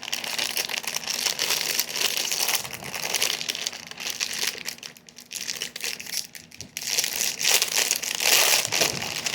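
Plastic packaging crinkling and crackling as it is handled and pulled open, with brief pauses about five and six and a half seconds in.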